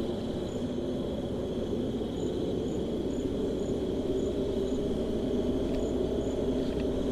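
Crickets: a steady high trill, joined about two seconds in by a higher, short chirp repeating about twice a second. Under them runs a steady low rushing noise.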